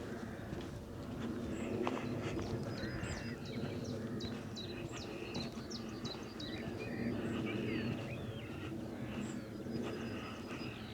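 Birds singing and calling, many short high chirps and whistles, over a steady low rumbling noise.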